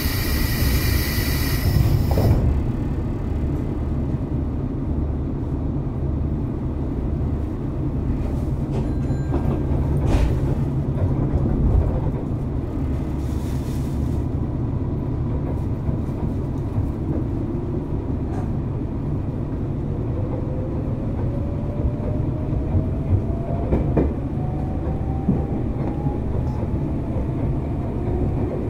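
Nankai 7100 series electric train running on the main line, heard from inside car 7181: a steady rumble of wheels on rail with occasional knocks. In the second half a motor whine climbs slowly in pitch as the train picks up speed.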